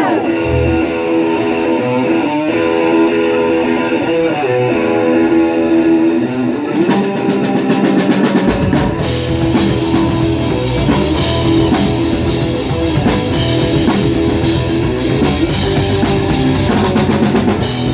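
Rock band playing the instrumental opening of a song: guitar chords alone at first, then drums and bass come in about seven to eight seconds in.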